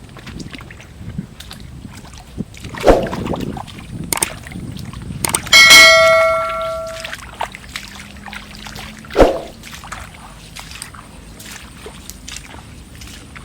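A metal object struck once, ringing with several clear tones that die away over about a second and a half. It comes between two duller knocks, over small clicks and handling noises.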